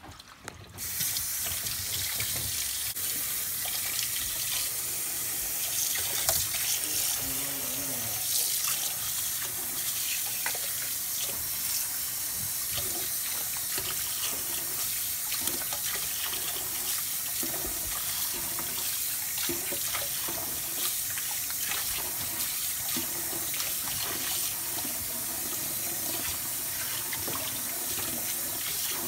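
Kitchen tap running cold water into a sink to rinse boiled pig stomach and chicken feet. The flow comes on about a second in and then holds steady, with small knocks scattered through it.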